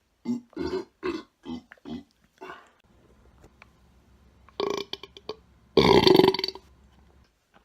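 A person burping: a quick string of short burps, then another burp about four and a half seconds in, and a loud, longer belch around six seconds in.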